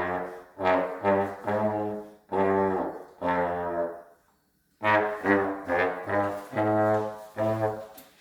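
A brass instrument playing a tune from a book of pieces in short separate notes, with a break of about a second a little past the middle.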